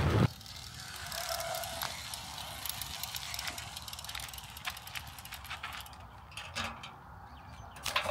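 Gravel bike's freehub ratchet clicking as the rear wheel turns without pedalling, a run of irregular light ticks.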